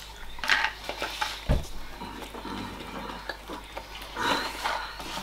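Two people chewing and eating pastry, with scattered light clinks of dishes and cutlery and a dull thump about a second and a half in.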